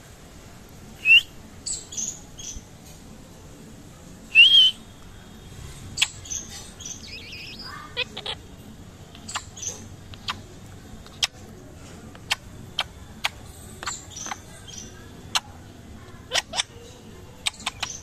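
Rose-ringed parakeet calling: two loud, short, rising calls about a second and four and a half seconds in, with softer chirps and chatter between. In the second half come sharp clicks at uneven intervals.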